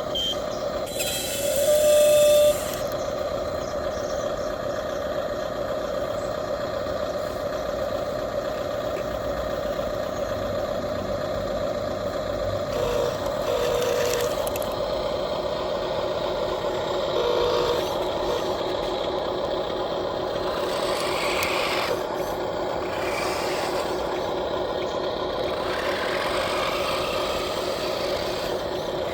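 Radio-controlled model excavator and trucks running steadily, with scraping and clatter from working sand. There is a brief louder burst about two seconds in.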